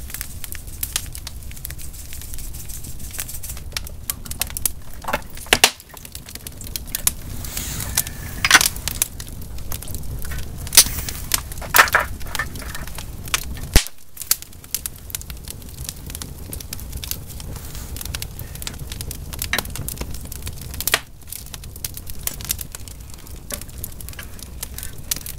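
Wood fire burning in a wood stove, crackling with sharp pops and snaps at irregular intervals over a low steady rumble.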